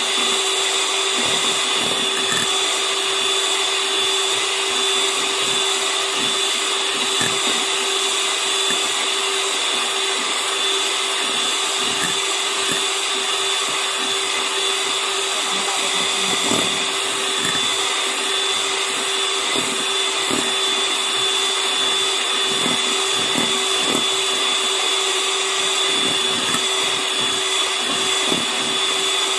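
Electric hand mixer running steadily with a constant whine, its twin beaters whipping coffee, sugar and hot water in a bowl, a mixture still being beaten toward a thick froth.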